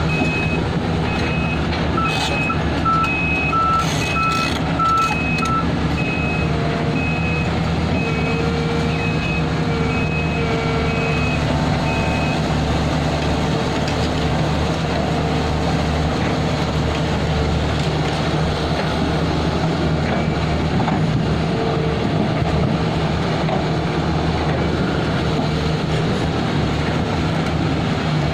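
Heavy excavator's diesel engine running steadily, with a high-pitched warning alarm beeping about one and a half times a second; the alarm stops about twelve seconds in. A second, lower beep sounds briefly near the start.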